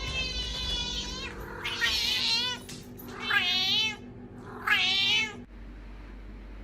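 A cat meowing: a long held call that ends about a second in, then three wavering meows, each under a second long. Background music underneath stops about five and a half seconds in.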